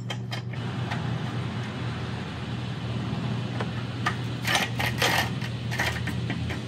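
Steel wire rope of a Badland 12,000 lb winch being pulled by hand out through its roller fairlead, with a run of metallic clicks and rattles about four to six seconds in. A steady low hum runs underneath.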